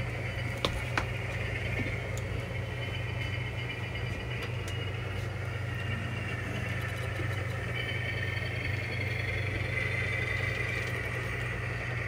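Model train locomotive running while it switches freight cars: a steady engine-like hum with a higher whine that grows louder about eight to eleven seconds in, and a couple of light clicks about a second in.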